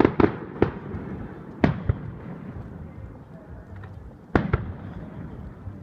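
Fireworks display: shells bursting overhead with sharp bangs, each trailing a brief echo. About five bangs come in quick succession in the first two seconds, then a close pair about four and a half seconds in.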